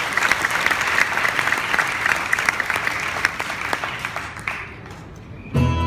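Audience applauding. The clapping thins out and dies away after about four and a half seconds, then loud music with a deep bass starts suddenly near the end.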